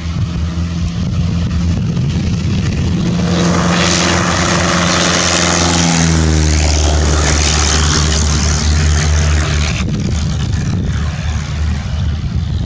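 Embraer EMB-712 Tupi's single four-cylinder Lycoming piston engine and propeller running at high power during a takeoff. A rush of air and wind noise swells about three seconds in and eases off near ten seconds, with a set of engine tones sliding down in pitch around the middle.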